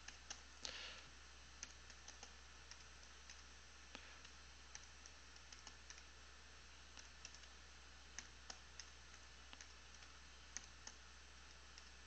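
Faint, irregular keystrokes on a computer keyboard: someone typing.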